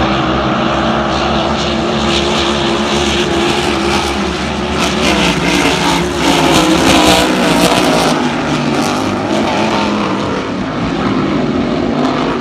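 Racing hydroplanes at full speed, their engines making a loud steady drone with a wavering pitch that swells about six to eight seconds in.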